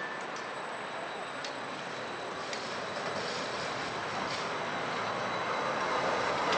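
Siemens Combino low-floor tram approaching at low speed, its running noise on the rails steadily growing louder, with a faint high steady whine and a couple of light clicks.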